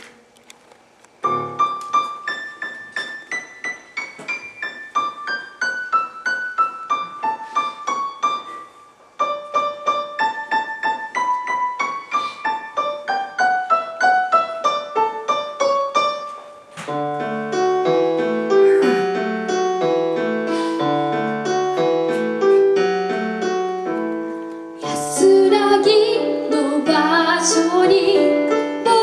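Casio Privia digital piano playing a song's introduction: a single melody line of high notes starting about a second in, with a brief pause near nine seconds, then fuller, lower chords from about seventeen seconds. A woman's singing voice comes in over the piano near the end.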